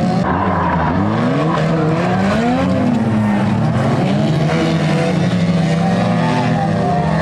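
Several 2-litre banger racing cars' engines running hard together, their pitches rising and falling against one another as the drivers work the throttle through the bends.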